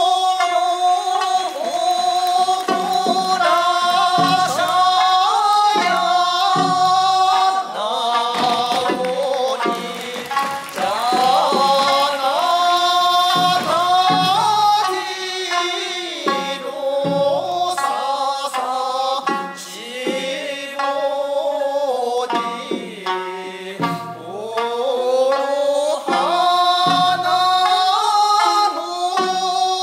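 Traditional Okinawan song sung to sanshin accompaniment, a held and bending vocal melody over plucked notes, accompanying a dance.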